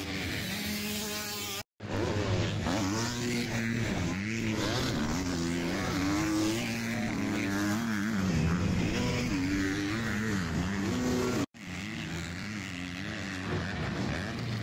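Motocross bikes racing on a dirt track, their engines revving up and falling off over and over as the riders hit jumps and corners, several bikes heard at once. The sound drops out briefly twice, near the start and late on.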